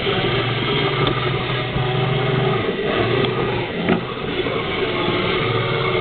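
Small electric motors of a K'nex camera stand running as it is driven up, down and side to side, a steady hum that stops and starts a couple of times, with a click about four seconds in.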